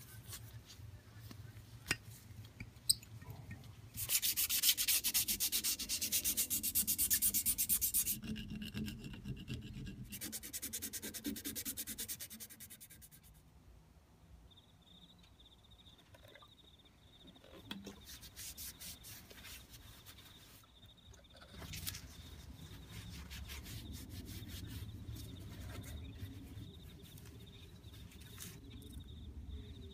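Hand sanding and rubbing on steel hand-vise parts in two loud scraping bursts, the first about four seconds in. Later comes softer rubbing of a paper shop towel.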